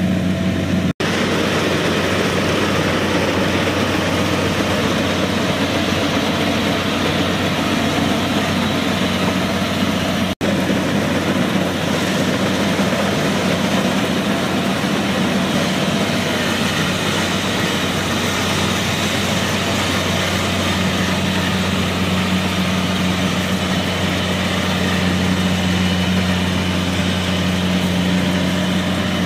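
Kubota DC70 rice combine harvester's diesel engine running steadily while it cuts and threshes rice, a loud, even, low hum with machinery noise over it. The sound drops out for an instant twice, about one second and ten seconds in.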